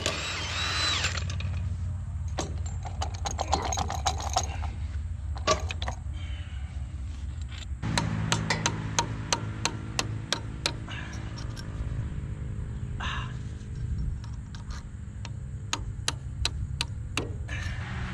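Hand ratchet wrench clicking in runs of quick strokes, densest about eight seconds in and again near the end, with scattered single clicks between, as bolts are worked by hand during a broken CV axle swap. A brief loud burst of noise right at the start, and a steady low hum underneath.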